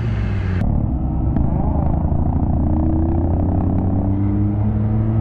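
Sport motorcycle engine running steadily under way, its pitch rising slowly over the last few seconds.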